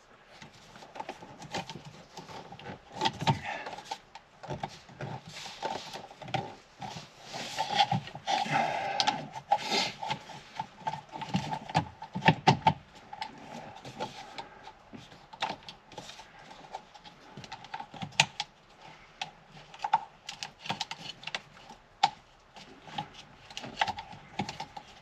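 Irregular clicks, knocks and rustling of hands working plastic trim parts and wiring connectors on a car's steering column, over a faint steady hum.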